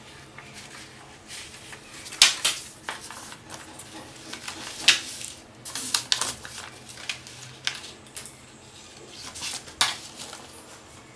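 Sheets of watercolour paper rustling and flapping as they are unclipped from wooden clothespins and shuffled into a stack by hand, with a few sharper, louder rustles.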